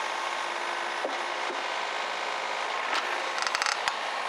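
Excavator diesel engine running steadily, with a quick cluster of short creaks and clicks about three and a half seconds in.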